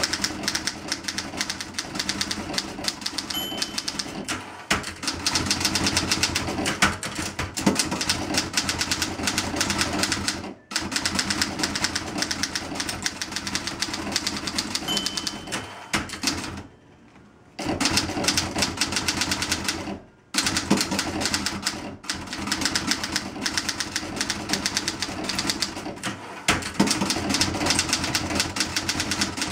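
1960 Olympia SG-1 standard manual typewriter being typed on at speed, a fast run of key and typebar strikes against the platen with a few brief pauses.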